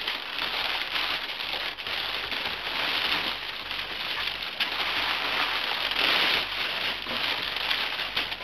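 Crumpled packing paper being pulled out of a cardboard shipping box, crinkling and rustling continuously.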